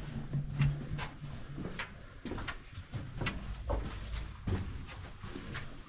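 Footsteps and scuffs of people walking through a sand-mine tunnel: irregular short knocks and scrapes, about two a second.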